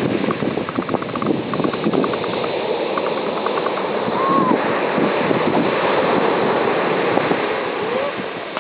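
Sea waves washing onto the shore in a steady rush, with faint voices over it.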